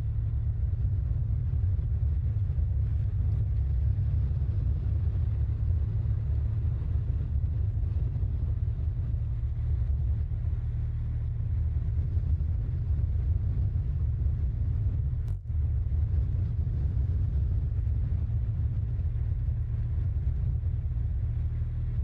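Steady low rumble of wind and road noise on the microphone of a camera moving alongside road cyclists, with one brief dip about fifteen seconds in.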